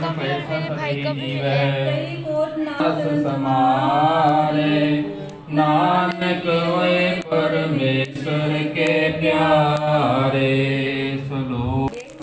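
A man's voice singing a Sikh devotional hymn (Gurbani kirtan) in long, wavering held notes, with a few short breaks between phrases.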